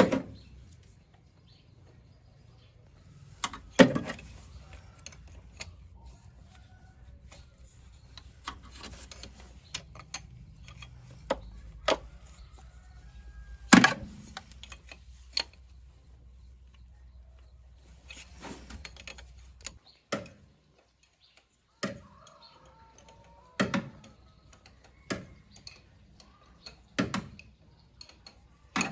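A string of separate knocks and clicks at uneven intervals, the loudest about four and fourteen seconds in, over a low steady hum that stops about two-thirds of the way through.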